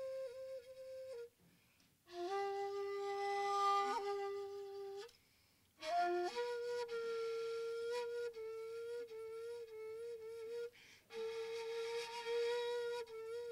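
Shakuhachi, a Japanese end-blown bamboo flute, playing slow, long-held notes with a breathy edge, broken by three short pauses. After the second pause the player scoops up into a higher note and holds it with slight wavers.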